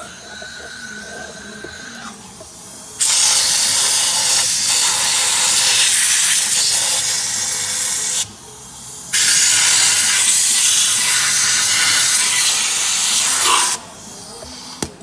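Hand-held compressed-air gun hissing in two long blasts of about five seconds each, with a short break between, starting and stopping abruptly as it blows out the exposed valve body of an automatic transmission with the oil pan removed.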